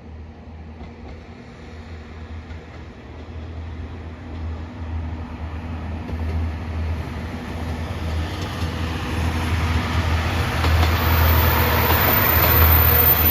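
Train approaching on the rails, its rumble growing steadily louder and loudest near the end as it nears.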